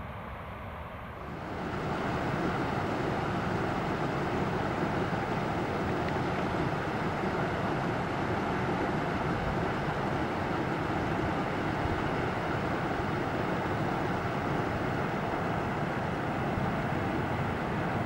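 Steady rushing of river rapids, getting louder and fuller about a second and a half in, then holding steady.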